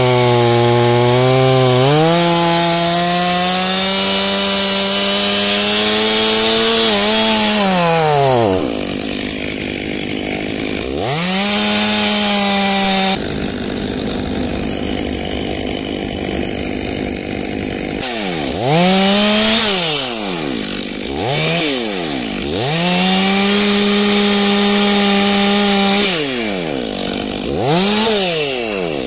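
Stihl MS 500i fuel-injected two-stroke chainsaw at full throttle, its pitch sagging as it cuts into a log, then falling away about eight seconds in. After a few seconds of steady hiss with no engine note, the saw is revved up and released several times in quick blips and held at high revs for a few seconds.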